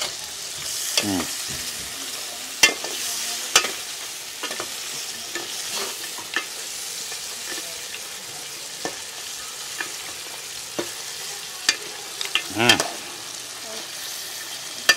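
Metal spoons clinking and scraping against a metal cooking pot as food is stirred and scooped out, in sharp irregular clicks over a steady hiss.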